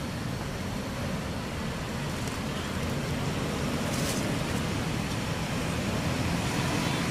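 Steady low outdoor rumble, like distant traffic, with a brief high crackle about four seconds in.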